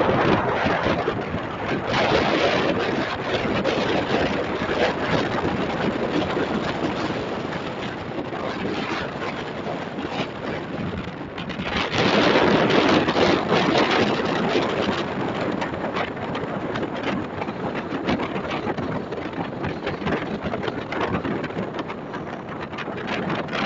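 Strong wind blowing across a yacht and buffeting the microphone, coming in gusts, with the strongest gust about twelve seconds in.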